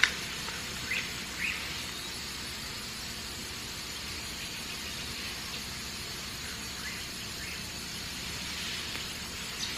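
Quiet, steady hiss of background ambience. Faint, short rising chirps come twice about a second in and twice again about seven seconds in.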